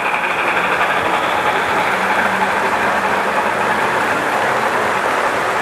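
Several O scale model trains running on the layout at once: a steady running noise of wheels on the rails and the locomotives' motors.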